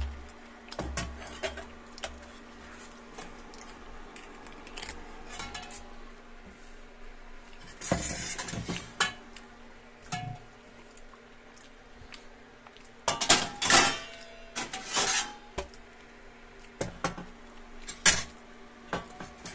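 Stainless steel plates, bowls and utensils clinking and clattering as they are handled and set down, with the busiest run of clatter about two-thirds of the way through, over a steady low hum.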